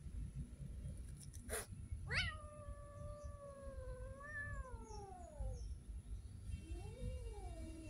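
A cat meowing: one long drawn-out meow that jumps up in pitch, holds and then falls away, followed about a second later by a shorter meow that rises and falls. A sharp click comes just before the first meow.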